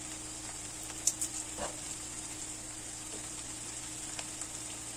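Diced peppers and onion sizzling steadily in a frying pan, with a few light clicks a little over a second in.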